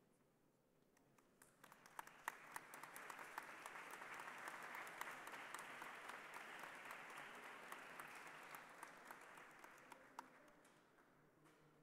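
Faint applause, many people clapping, with single sharp claps standing out. It starts about a second and a half in, swells, then dies away near the end.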